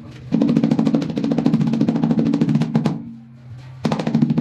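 Power tool with a hammering action, running in two bursts of rapid, even impacts over a steady motor hum, with a short pause in between.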